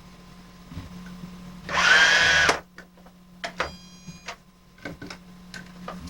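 Keys of a toy cash register clicking as items are rung up, with one loud mechanical whir of about a second a little before the middle.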